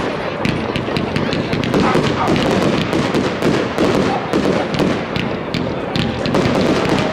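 Aerial fireworks bursting, many sharp bangs in quick succession throughout.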